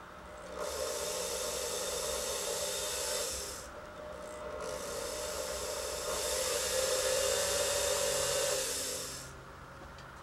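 A small rotary bit grinding into solid acrylic with a steady rasping sound, in two passes: the first about three seconds long, then a short pause, then a second pass of about five seconds.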